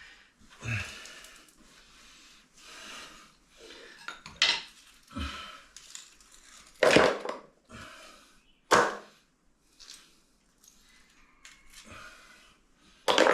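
A metal hand tool scraping and chipping at hardened cement, with a few sharp knocks, the loudest about seven and nine seconds in.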